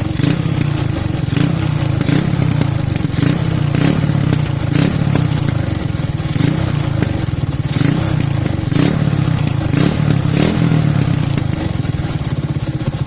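Motorcycle engine running steadily through an Organ Sport power pipe aftermarket exhaust, a loud, even exhaust note with irregular sharp pops and crackles. The engine is upgraded (57 mm block, 125 carburettor, cams); the exhaust sounds loud but a little leaky or breathy, which the listener puts down to the engine upgrade.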